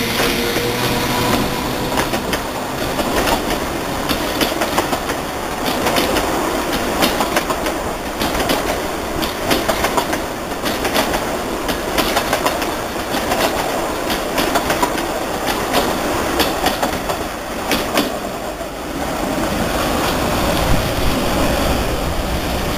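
Ferrocarril de Sóller narrow-gauge electric train rolling along the track, its wheels clicking over the rail joints many times throughout, with a steady rumble underneath.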